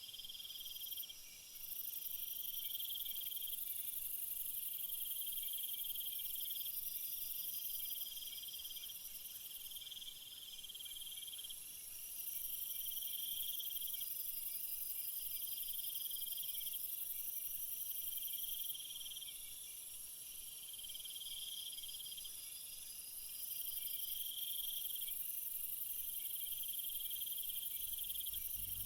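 Crickets and other insects chirping. A high, steady trill drops out and returns several times over a lower pulsing chirp that repeats about every two seconds.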